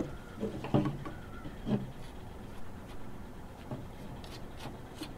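Quiet room tone with a few faint, soft clicks.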